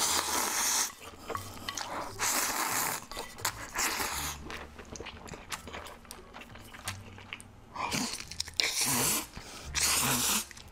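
A person slurping mouthfuls of spicy instant noodles in several bursts about a second long, with chewing and small wet clicks between the slurps.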